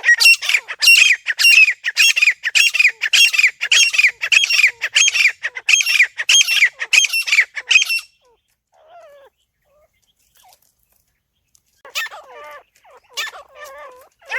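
Grey francolin (teetar) calling: a fast run of loud, high-pitched repeated notes, about two and a half a second, that breaks off after some eight seconds. After a pause, a few scattered calls come near the end.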